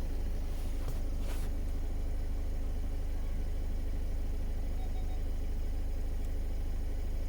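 Skoda Octavia 2.0 TDI diesel engine idling steadily, with a short click and a brief rushing noise about a second in. A faint double beep comes around five seconds in.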